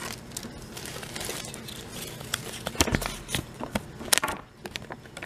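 A toy blind bag wrapper and its folded paper collector's leaflet crinkling and rustling as they are handled and unfolded. The sound is a string of irregular crackles, loudest about three to four seconds in.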